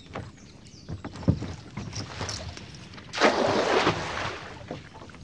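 Water splashing: a few short knocks, then a louder rushing splash about three seconds in that lasts under a second.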